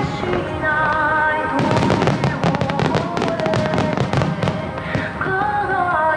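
A rapid, dense barrage of aerial firework shells bursting and crackling, thickest in the middle, with music playing steadily underneath.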